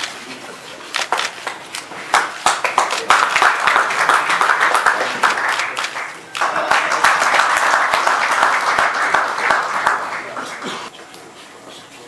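Audience applauding with dense hand claps, building about two seconds in and dying away near the end.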